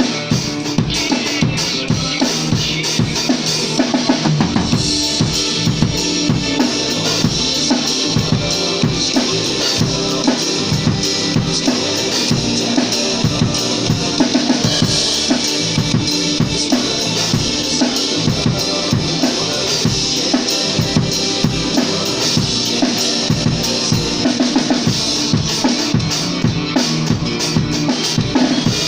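Rock music led by a drum kit playing a steady beat of kick and snare hits with cymbals, over sustained band instruments.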